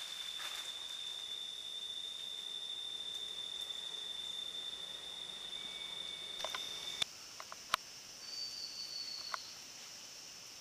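A steady, high-pitched insect trill that cuts off abruptly about seven seconds in. A fainter, higher insect drone follows, with a few sharp clicks.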